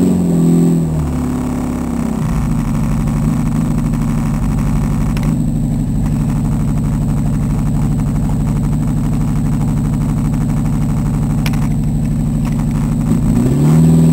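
1982 Volkswagen Rabbit's engine running just after a hard start, dropping from a rev to a steady idle, then revved briefly once near the end.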